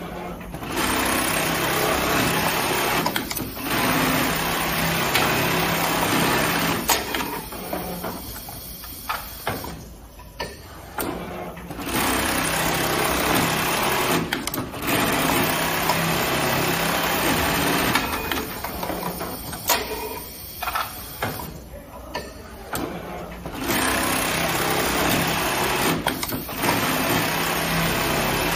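Automatic coin pocket pattern sewing machine, servo-driven, stitching at high speed in three long runs of several seconds, each a sewing cycle. Between the runs the machine goes quieter, with sharp clicks as the clamp frame and folding gear move.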